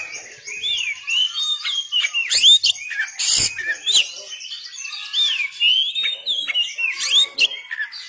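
Oriental magpie-robin (kacer) singing: a rapid, unbroken run of varied whistles and chirps, many sliding up and down in pitch, with one brief harsh noisy note a little past three seconds in.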